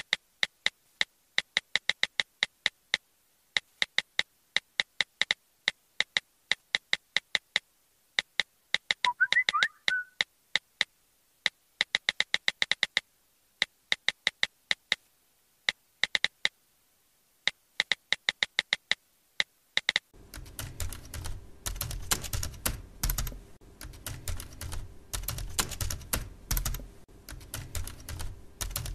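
Typing: bursts of sharp, bright clicking taps in uneven groups, with a short chirping tone about a third of the way in. About two-thirds through it changes to denser, heavier keyboard clatter.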